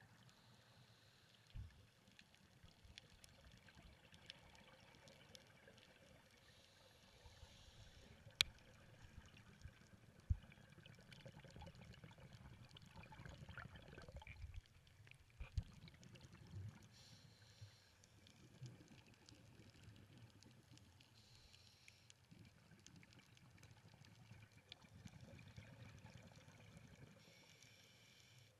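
Faint, muffled underwater sound heard through a camera's waterproof housing: a low rumble with a few sharp clicks or knocks, the loudest about 8 and 10 seconds in.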